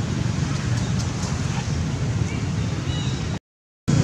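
Steady low outdoor background rumble with a faint high chirp about three seconds in. It cuts to silence for about half a second near the end.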